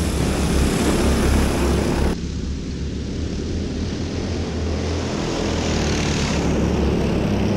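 Several small single-cylinder go-kart engines running hard as the karts race around a dirt oval, a steady buzzing drone.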